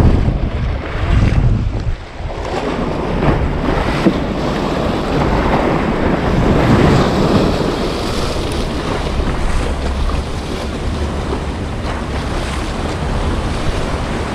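Sea waves breaking and splashing against the concrete blocks of a breakwater, with wind buffeting the microphone. The surf swells louder around the middle.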